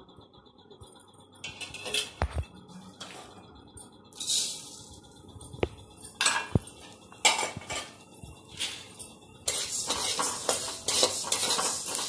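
Metal spoon clinking and scraping in a metal kadhai while black peppercorns roast in a little oil. At first there are a few separate knocks, then steady stirring takes over about three-quarters of the way in.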